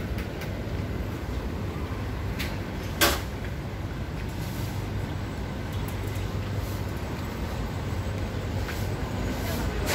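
City street ambience: a steady low rumble of traffic, with one sharp clack about three seconds in.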